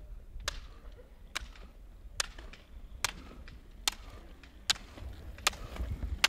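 Ski pole tips striking asphalt during roller skiing, a sharp click a little under once a second in a steady rhythm, over a low rumble.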